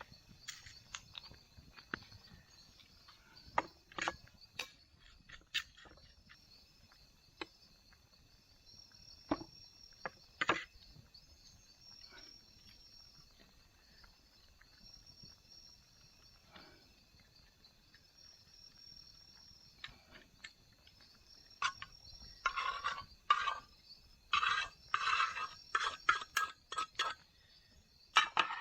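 Steady high insect trilling, typical of crickets, under scattered small clicks and clinks of cooking utensils and containers being handled. Near the end comes a run of louder rustling and scraping.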